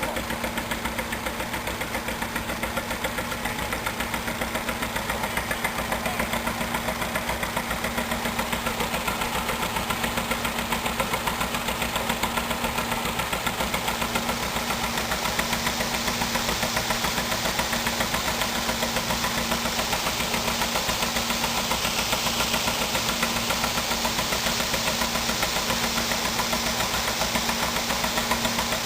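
An engine running steadily at a low speed, with an even, rapid beat of exhaust pulses and a steady hum underneath.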